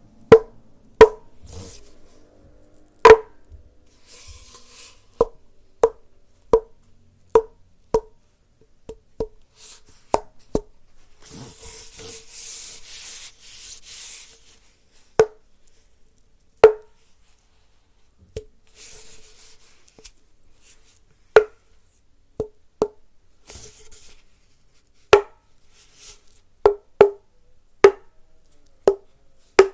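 Some two dozen sharp taps at irregular intervals on a hard, hollow object, each with a short ring at the same pitch, like a wood block. About eleven seconds in there are a few seconds of scratchy rubbing.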